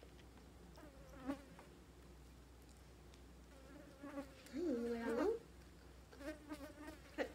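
A housefly buzzing close by in several passes, its pitch wavering and jumping as it flies: briefly about a second in, longest and loudest around the middle, and again near the end.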